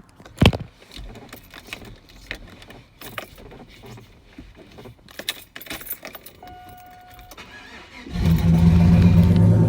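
Keys and small clicks and rattles as the truck is tried, with a sharp knock about half a second in and a short steady electronic chime near seven seconds. About eight seconds in, the GM pickup's engine starts and settles into a loud, steady run; the earlier failed attempt came from the steering wheel being turned too far.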